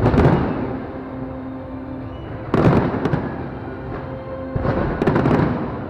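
Fireworks going off in three loud volleys of bangs and crackle, about two and a half seconds apart, with music playing steadily underneath.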